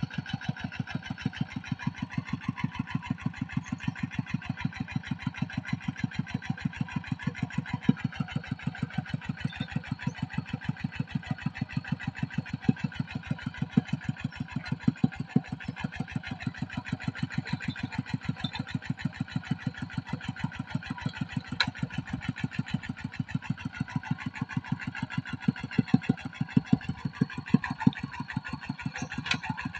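Single-cylinder diesel engine of a two-wheel walking tractor idling with an even, steady chugging beat. One sharp click about two-thirds of the way through.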